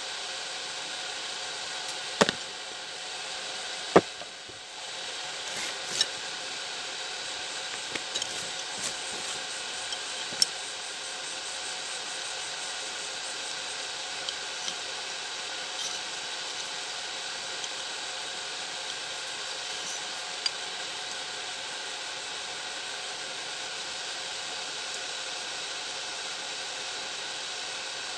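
Small parts being handled on a workbench, clicking and tapping every few seconds, the loudest knocks about two and four seconds in, over a steady hiss with faint steady tones.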